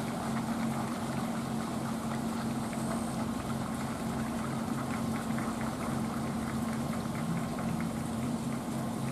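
EF63 electric locomotive standing with its on-board auxiliary machinery running: a steady low hum with an even pulsing throb underneath.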